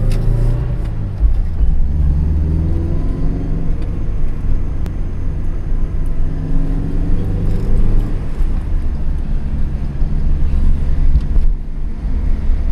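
Toyota AE86 Trueno's 1.6-litre 4A-GE twin-cam four-cylinder running under way, heard from inside the cabin, its pitch rising and falling as it pulls along, over steady road and tyre rumble.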